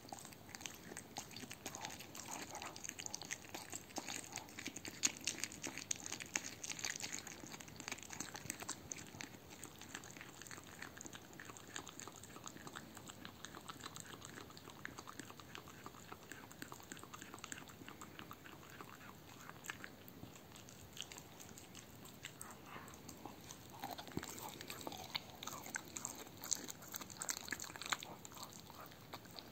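A dog chewing and licking a raw veal heart: a long run of small clicks and smacks from teeth and tongue on the meat, busier in the first third and again near the end.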